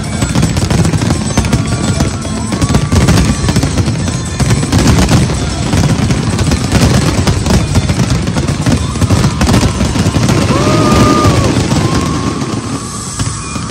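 Fireworks display firing in a dense, continuous barrage: many shells bursting in quick succession, their bangs and crackle overlapping without a break.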